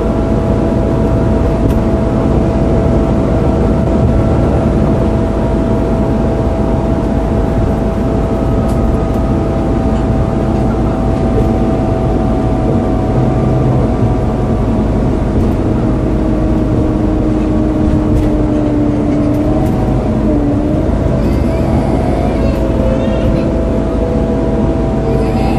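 Volvo B9TL double-decker bus heard from inside while driving: the engine cooling fan whines steadily in a hoover-like drone over engine and road rumble, its pitch wavering and drifting lower near the end.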